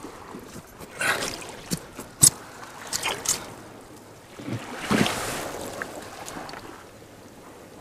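Shallow rock-pool water sloshing and trickling and wet seaweed rustling as a hand works in the pool to pull out a lobster, with a few short sharp clicks and knocks.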